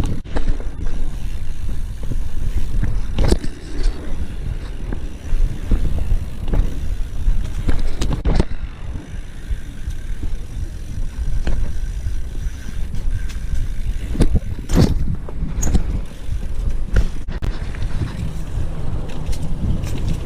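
A BMX bike being ridden: a steady low rumble of wind on the microphone and rolling tyres, broken by several sharp knocks from the bike.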